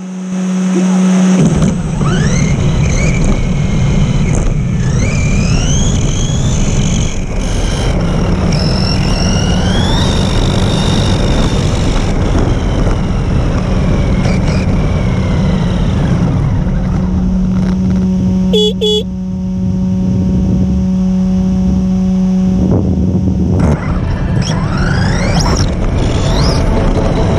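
Electric RC car driving fast on a tarmac path, heard from its onboard camera: the motor whines up in pitch again and again as it accelerates, over a constant rumble of tyres and chassis. A steady low hum runs underneath for several seconds in the middle.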